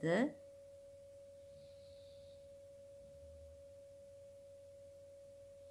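A faint, steady single tone, like an electronic whine, held unchanged without any pitch change.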